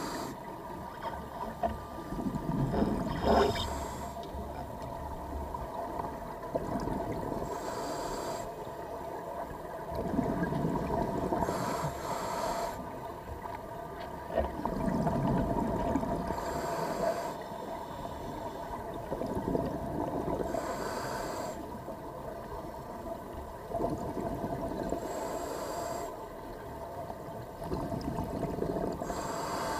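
A scuba diver breathing through a regulator underwater, a breath about every four to five seconds: a short hiss on each inhale, and on each exhale a low rumble of bubbles.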